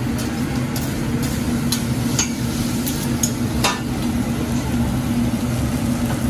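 Fried rice and noodles sizzling on a hibachi flat-top steel griddle, with the chef's metal spatula clinking and scraping on the steel several times during the first four seconds. A steady hum runs underneath.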